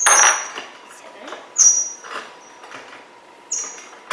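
A hammer striking a steel number stamp to punch a digit into wood: three sharp metallic strikes, each with a brief high ring, a second and a half to two seconds apart.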